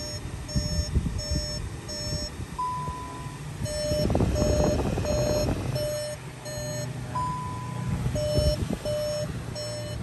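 Car's electronic warning chime beeping: runs of short beeps about two a second, broken twice by a single longer, higher tone, over rustling handling noise. No parking-brake motor is heard running; the brake service mode has failed with a fault.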